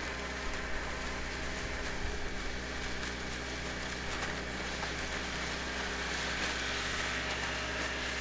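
Farm machine's engine running steadily at constant speed, a continuous drone with a broad hiss over it.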